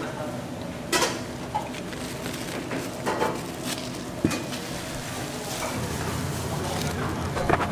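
Kitchen clatter: dishes and utensils knocking and clinking now and then over a steady low hum.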